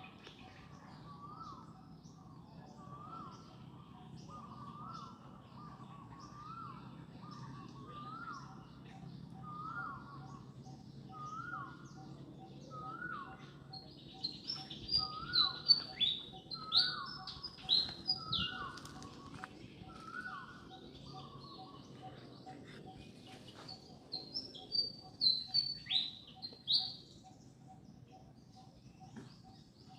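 Birdsong: one bird repeats a short falling note about once a second, and loud high chirps come in two quick bouts, about halfway through and again near the end.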